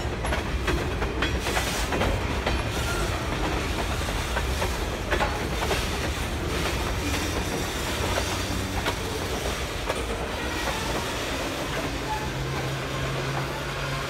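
Freight train cars rolling past: a steady rumble with wheels clicking irregularly over the rail joints.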